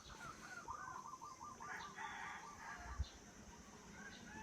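A rooster crowing faintly, in a long wavering call. There is a single short thump about three seconds in.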